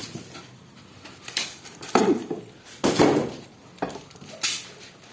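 Knocks and rattling of hard parts being handled while a new dishwasher is unpacked: several sharp knocks, the loudest about two and three seconds in.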